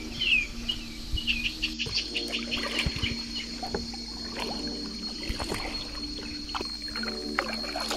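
Kayak paddle dipping and dripping in calm water. A bird gives a quick series of chirps over the first couple of seconds, and a thin steady high whine sets in about two seconds in.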